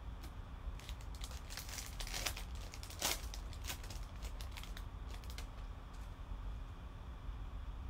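Foil wrapper of a baseball card pack crinkling and tearing as it is ripped open and peeled off the cards. A run of sharp crackles starts about a second in, is loudest near three seconds and fades out by about five and a half seconds.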